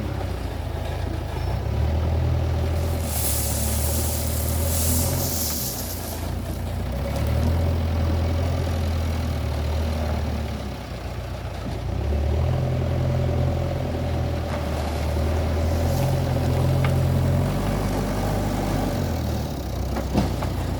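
JCB 3DX backhoe loader's diesel engine running and changing speed every few seconds as it works, with a steady whine over it. A loud hiss comes about three seconds in and lasts a few seconds.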